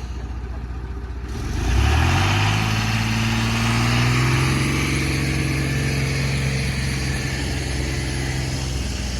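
Heavy diesel engine running low, then revving up about a second and a half in and holding at high revs.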